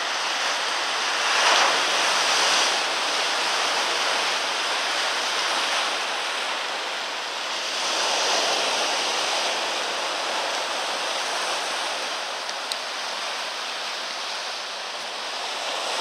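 Rough sea surf breaking and washing in, a steady rush that swells as waves come in about two seconds in, again about eight seconds in, and near the end.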